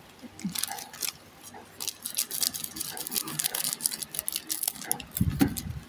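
Foil trading-card booster pack crinkling as it is handled and cut open with scissors: a run of quick rustles and snips, with a dull thump near the end.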